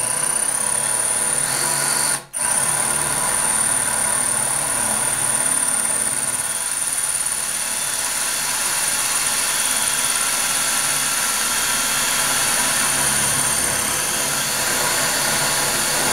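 Cordless drill running steadily with a high whine as its bit slowly bores into glazed ceramic wall tile, with a brief stop about two seconds in.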